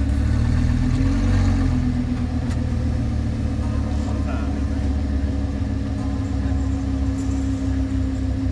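Lamborghini Gallardo's V10 idling through its quad exhaust, with a slight lift in revs about a second in before it settles back to a steady idle.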